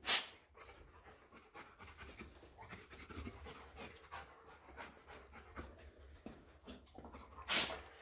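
A dog panting steadily, with a short, sharp noisy burst right at the start and another near the end.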